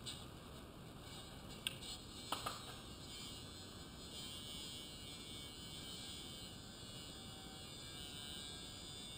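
Faint steady background hiss, with three sharp clicks about two seconds in.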